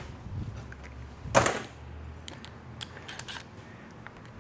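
Metal transmission parts being handled on a steel workbench: one sharp clunk about a second and a half in, then a few light clicks and taps.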